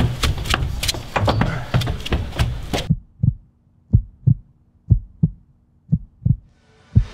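Rapid clatter of footsteps and knocks from someone running up a stairway, which cuts off suddenly about three seconds in. A heartbeat sound effect follows: low double thumps, about one lub-dub a second, over a faint steady hum.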